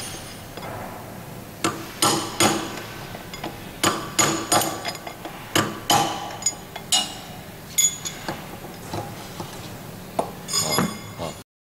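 Hammer tapping a metal tool against a universal joint's needle-bearing cap to knock it out of the cast yoke: a dozen or so sharp metallic strikes with a short ring, irregularly spaced and some in quick pairs, ending in a quick cluster before the sound cuts off suddenly.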